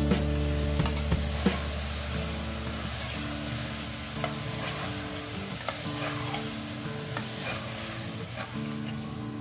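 Meat frying and sizzling in an aluminium pressure cooker while a spatula stirs it, with small scrapes and knocks of the spatula against the pot.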